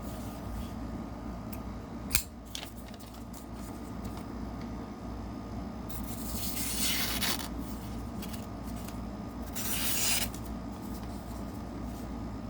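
Asher Douglas folding knife's thin S35VN steel blade slicing through paper in two strokes, a longer one about six seconds in and a shorter one about three seconds later. A single sharp click comes about two seconds in.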